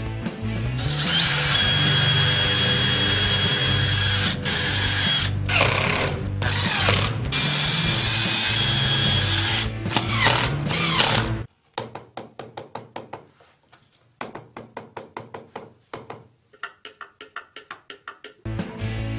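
Power drill driving screws into plywood, its motor whining in several short runs with rising pitch as the screws seat, over background music. Then, from about halfway, a long run of quick clicks, about five a second, for several seconds.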